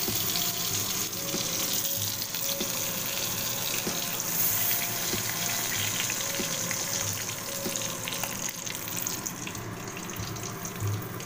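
Stuffed pointed gourds frying in hot mustard oil in a kadai: a steady sizzle with a few light clicks of a metal spatula. The sizzle thins a little near the end.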